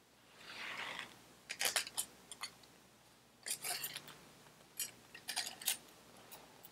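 A thin base gasket being worked down over the cylinder studs of a Vespa PX two-stroke engine's crankcase. There is a short rustle about half a second in, then scattered light clicks and crackles as it catches on the studs.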